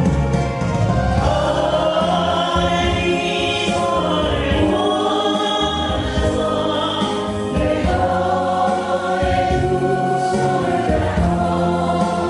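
A group of voices singing a Korean pop ballad in unison over an accompaniment track with bass and keyboard.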